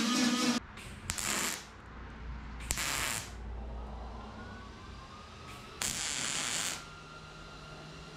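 Welder laying three short tack welds on a steel roof rack, the last about a second long.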